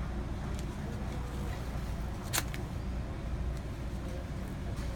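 A single short rip of white athletic tape being pulled from the roll about two and a half seconds in, over a steady low hum.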